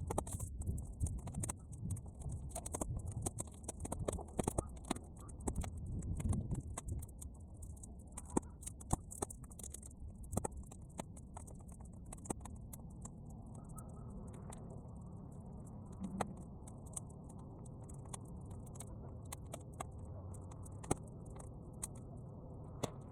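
Bonfire of half-dried weeds crackling, with irregular sharp pops and clicks. Wind rumbles on the microphone, heavier in the first several seconds.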